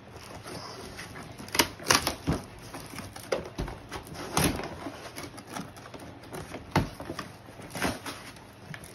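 Cardboard box being torn and wrenched open by hand: irregular sharp rips and knocks a second or so apart, the loudest about two seconds in and again halfway through, with cardboard rustling between.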